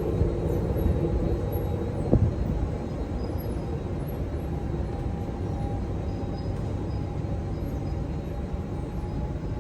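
Steady low rumble of an underground metro station, with a faint steady hum and a single knock about two seconds in.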